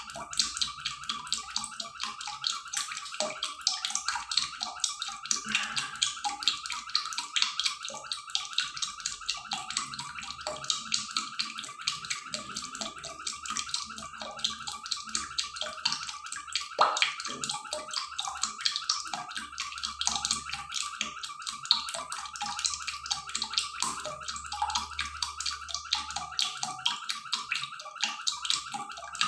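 Pan of duck wings and feet boiling in liquid: a dense, steady bubbling crackle.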